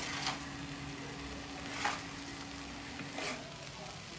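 Filling stir-frying in a pan with a steady sizzle, and a metal spatula scraping and turning it about every second and a half.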